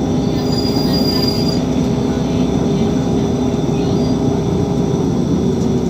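Irisbus Citelis 18 articulated city bus heard from inside while driving: a steady drone from the engine and drivetrain with a held whine. A brief high-pitched squeal comes in about half a second in and lasts about a second.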